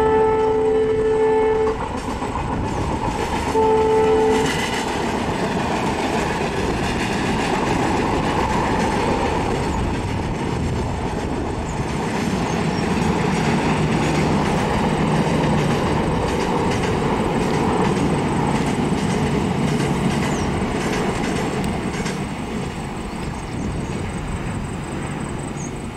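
Indian Railways diesel locomotive's horn sounds twice in the first few seconds, a longer blast then a short one. Then the passenger train rolls steadily across the viaduct, its wheels clattering, and the sound eases off near the end.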